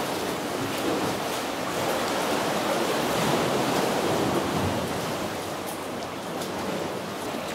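Ocean water washing steadily at a sea cave's mouth, a rushing noise with no distinct splashes.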